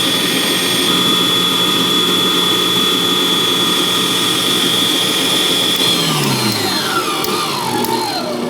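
Vevor 600-watt stand mixer's motor running at high speed with a steady high whine, its whisk beating heavy cream in the bowl. About six seconds in the speed is turned down step by step and the whine falls in pitch, winding down toward a stop.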